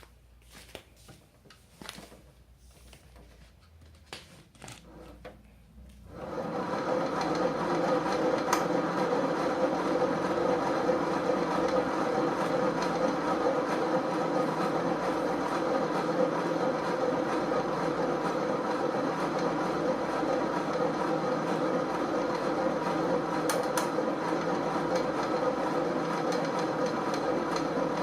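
WONDER CORE exercise bike being pedaled by a rider: after a few faint knocks, about six seconds in, its drive starts into a steady mechanical rumble with a fast clacking rattle. This is the bike's abnormal noise, a 'ka-ka-ka' clicking that the owner says gets worse with someone seated and pedaling.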